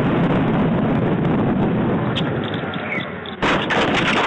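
A vehicle's running and road rumble picked up by a dashcam microphone. About three and a half seconds in, a sudden loud crash noise breaks in, with a run of knocks and rattles as the camera is shaken about in the collision.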